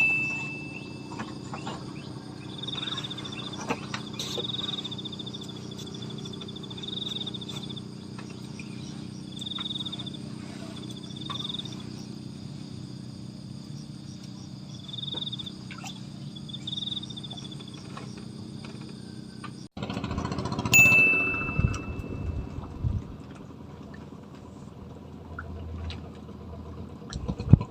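Short insect chirps recurring every second or two over a steady low drone; about two-thirds of the way in, the background changes abruptly to a rougher, noisier sound.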